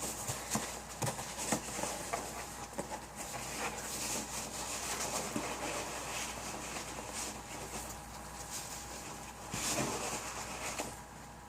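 Loose styrofoam packing being scooped and rustled out of a cardboard shipping box: a continuous rustle with many irregular light clicks and taps, and a louder burst of rustling near the end.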